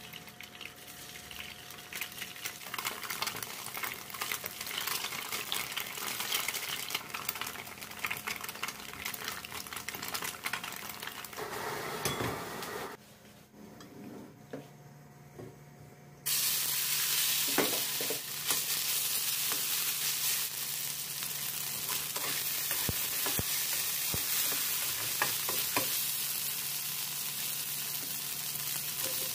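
Tofu frying in oil in a nonstick pan, the sizzle building steadily. After a quieter stretch about halfway through, a louder, steady sizzle starts abruptly as marinated chicken pieces fry in hot oil in a wok, with a few sharp knocks and scrapes of a utensil.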